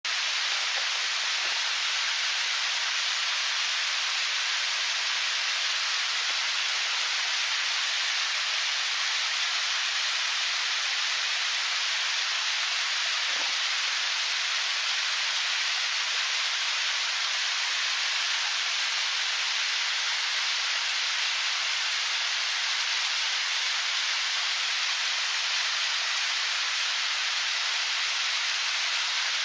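Nanakusa Falls, a waterfall running at low flow, making a steady, even rush of falling and splashing water.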